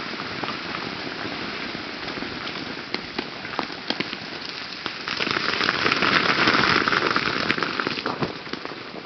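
Ice breaking off ice-glazed tree branches and falling through the woods, a constant pattering with many sharp clicks, thickening into a heavier shower of ice from about five seconds in for a few seconds.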